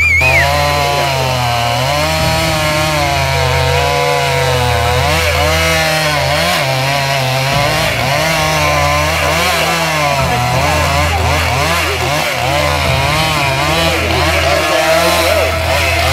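A two-stroke chainsaw running hard while felling a large dead pine. Its engine pitch keeps rising and falling as the saw works in the cut.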